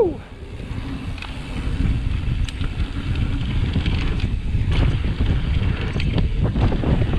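Wind buffeting the microphone of a camera riding along on a mountain bike descending a dirt forest trail, a constant low rumble with the bike's frequent rattles and clicks over bumps. A brief falling tone sounds right at the start.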